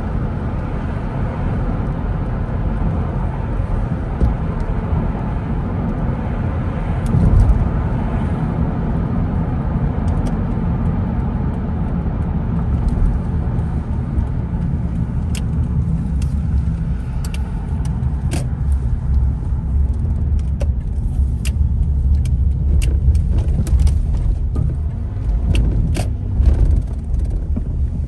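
Steady low rumble of a car driving: engine and tyre noise on the road. From about halfway through, irregular sharp ticks come over it.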